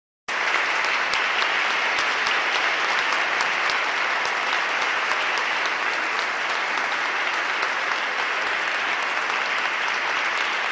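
An audience of several dozen people clapping steadily, a dense, even applause that starts abruptly just after the beginning.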